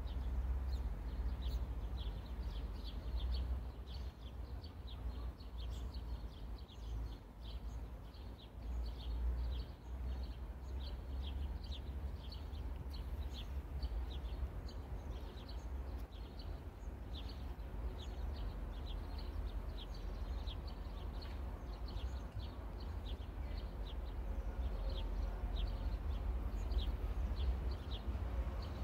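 Trackside ambience: a bird chirping repeatedly, short high chirps every second or so, over a low steady rumble.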